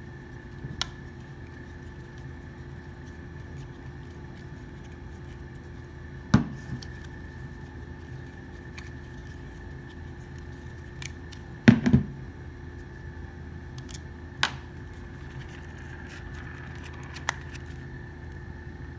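Scattered clicks and knocks of a Glock 19 pistol frame and its Taran Tactical magazine well being handled and worked apart with small tools. The loudest is a quick cluster of knocks just before the middle. A steady low hum runs underneath.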